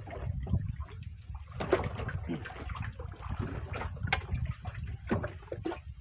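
Small waves lapping and slapping irregularly against the hull of a small boat, over a steady low rumble of wind on the microphone.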